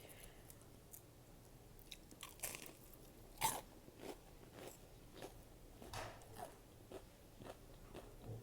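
Close-up eating sounds: a person biting and chewing crunchy food, with irregular crisp crunches after a quiet first couple of seconds, the loudest about halfway through.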